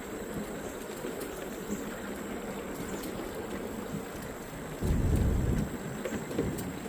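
Steady rushing noise of a bicycle rolling along a trail, with a loud burst of wind buffeting the microphone about five seconds in.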